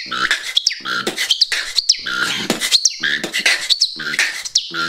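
Beatboxing: a rhythmic pattern of short hummed bass notes and sharp clicks, broken up by quick, high, bird-like whistled chirps that glide up and down.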